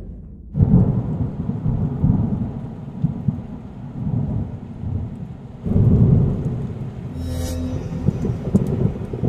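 Thunder rumbling, laid over an end card as a sound effect. It swells suddenly about half a second in and again near six seconds, with a brief hissing whoosh around seven and a half seconds.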